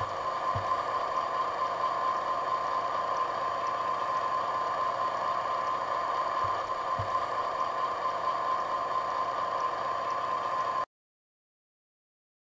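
A steady whirring hum with hiss and a constant high tone, which cuts off suddenly near the end.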